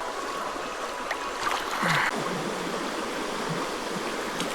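Creek water rushing steadily over rocks, with a brief louder burst of water noise about two seconds in.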